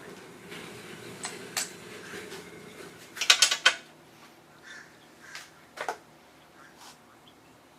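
Sharp clicks and knocks of hard objects being handled, with a quick cluster of them about three seconds in as the loudest part, over a faint steady hum.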